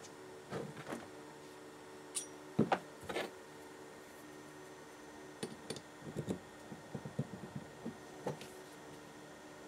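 Light clicks and taps of small steel tools against a brass flywheel: a hex key working the hub's grub screw and being laid down, then a steel rod fitted into the hub's bore. The sharpest knocks come a couple of seconds in, and a run of small clicks follows in the second half, over a faint steady hum.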